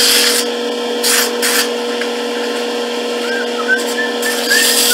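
100-grit sandpaper held by hand against a walnut spindle spinning on a wood lathe: a rubbing hiss that comes and goes with the strokes, over the steady hum of the lathe's motor.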